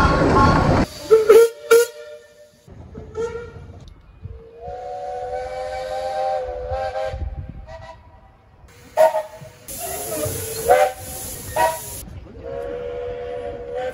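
Chime whistles of Romney Hythe & Dymchurch Railway 15-inch gauge steam locomotives sounding a series of blasts, some short toots and some longer held calls, each a chord of several tones. The first blast is heard over the running noise of the moving train. A hiss of steam comes about ten seconds in.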